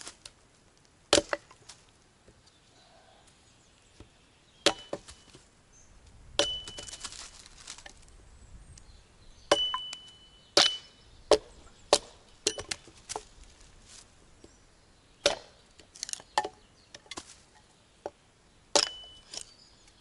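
Axe splitting firewood on a stump chopping block: about fourteen sharp, separate chops at irregular intervals, several followed by a brief high ring.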